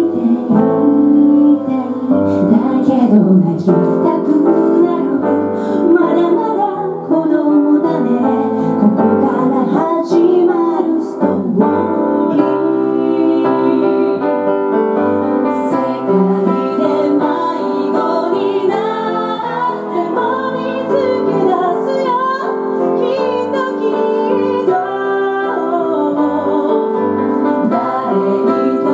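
A woman singing a song into a microphone, accompanied by a grand piano.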